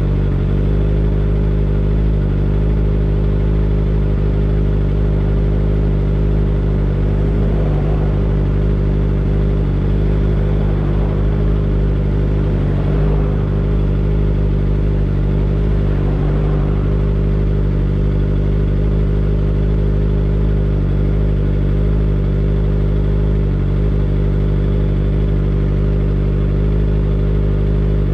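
Kawasaki Ninja ZX-25R's 250 cc inline-four engine running at a steady speed while the motorcycle cruises, heard from the rider's seat, its note holding one pitch throughout.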